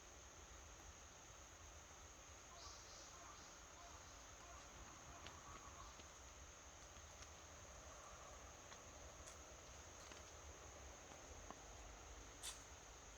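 Near silence: a steady faint high-pitched hiss with a few faint clicks, the sharpest about twelve seconds in.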